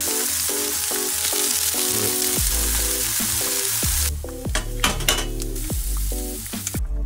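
Oysters and chunks of Japanese long onion frying in a hot pan with a loud steady sizzle that cuts off abruptly about four seconds in. Sharp spitting crackles follow as mushrooms fry, and a light background music melody plays throughout.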